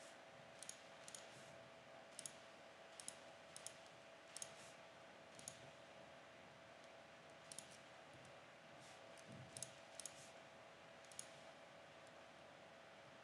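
Computer mouse button clicking: about a dozen single sharp clicks at irregular intervals, over a faint steady hum.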